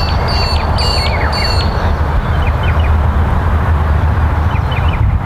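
Steady wind rumbling on the microphone, with birds chirping over it: four quick repeated high calls in the first second and a half, then scattered short chirps.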